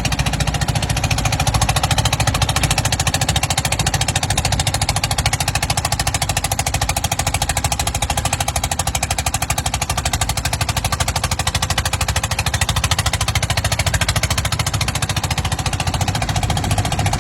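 A 9 horsepower Calf dozer's engine running steadily with a rapid, even knocking beat and a steady high tone above it.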